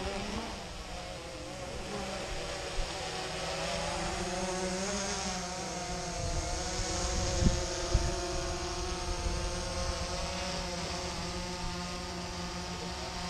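Quadcopter drone's propellers buzzing steadily in flight, their pitch wavering slightly, with wind buffeting the microphone and a brief gust about halfway through.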